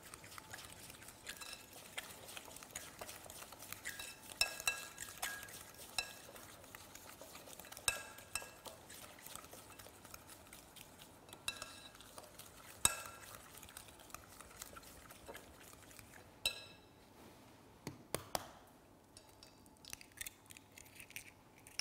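A metal utensil hand-beating eggs into sugar and olive oil in a glass bowl, with irregular clinks against the glass that ring briefly. Near the end come a couple of sharper knocks as an egg is cracked.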